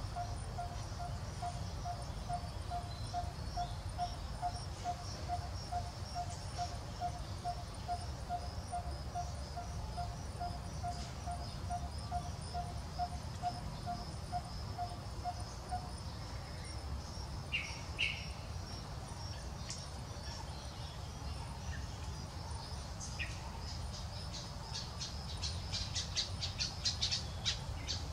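Outdoor wildlife ambience: insects shrill steadily at a high pitch, while a short low note repeats about two or three times a second and stops a little past halfway. Near the end comes a fast run of high clicking chirps, with a low rumble underneath throughout.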